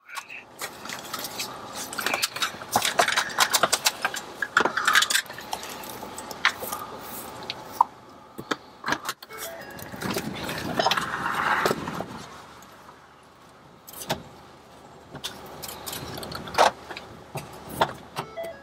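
Outdoor storm-chase ambience: rushing noise with many scattered, irregular clicks and taps, and a louder rushing swell about ten seconds in.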